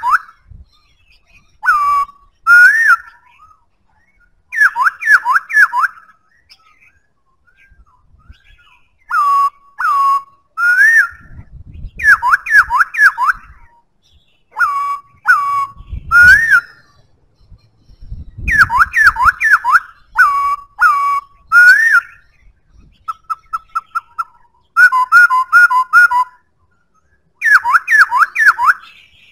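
Black-throated laughingthrush singing: loud, clear whistled phrases that bend up and down in pitch, given in short bursts with pauses between, and a rapid run of short repeated notes about two-thirds of the way through.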